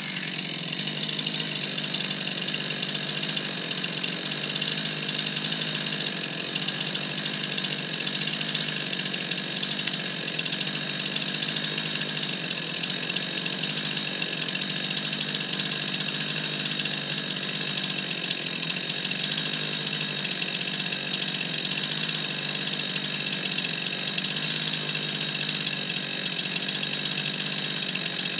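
Stihl two-stroke chainsaw idling steadily, with no revving.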